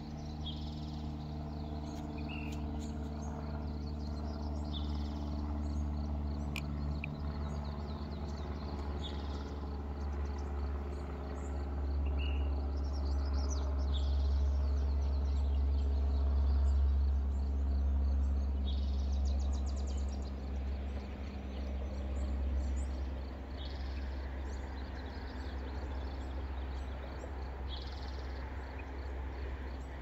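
Birds calling outdoors, one repeating a short call every few seconds, over a low rumble of road traffic that swells in the middle and then eases.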